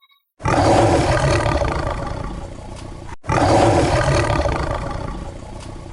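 Lion roar sound effect, played twice back to back. Each roar starts loud and tapers off over nearly three seconds, and the first breaks off sharply just before the second begins.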